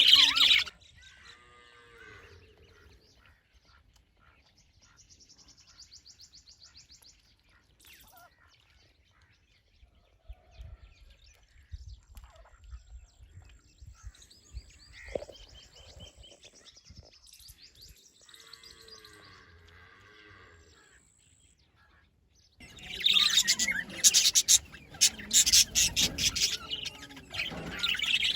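Birds chirping loudly and densely, a burst at the very start and then continuous chatter from about three quarters of the way in; in between it is mostly quiet with faint scattered calls and a short rapid trill.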